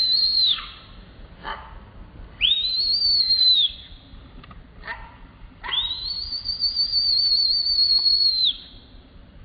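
Baby macaque screaming: high, thin, whistle-like screams, three of them. One breaks off just after the start, one lasts about a second and a half, and the longest, nearly three seconds near the end, wavers slightly.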